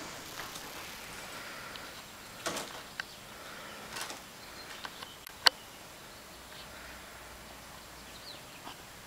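Siamese kittens playing with toys on a rug and wooden floor: scattered soft scuffles and rustles with a few sharp clicks, the sharpest about five and a half seconds in, over a steady background hiss.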